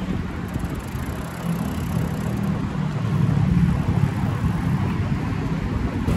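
Wind noise on the microphone of a moving bicycle, a steady low rumble, with motor traffic running nearby; an engine hum is clearest around the middle.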